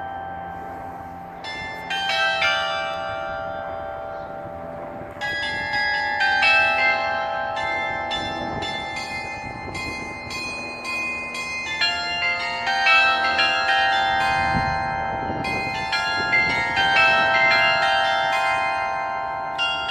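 A carillon of 95 bells playing a tune: many bells struck in quick phrases, their notes ringing on and overlapping.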